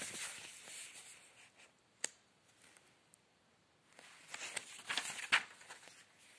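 Faint rustling and handling noise close to a phone's microphone, in two spells near the start and about four to five seconds in, with a single sharp click about two seconds in.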